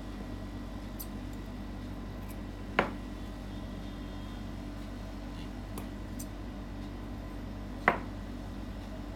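Grooming scissors and a metal comb being handled, giving two sharp clicks about five seconds apart and a few faint ticks, over a steady low background hum.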